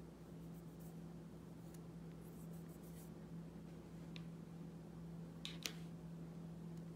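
Small miniature-kit pieces handled on a cutting mat: faint scattered clicks and light rubbing, with one sharper click about five and a half seconds in, over a steady low hum.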